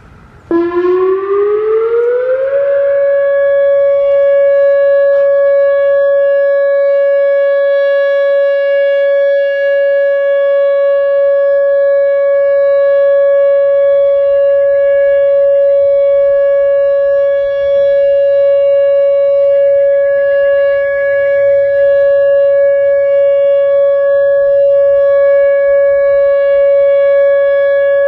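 Whelen WS-2000R electronic outdoor warning siren sounding its steady alert tone. It comes on about half a second in, rises in pitch for about two seconds, then holds one loud, steady tone.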